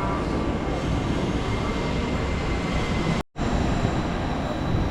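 Tren Maya train running: a steady rumble and hiss with faint high whining tones. The sound cuts out completely for a split second a little past three seconds in.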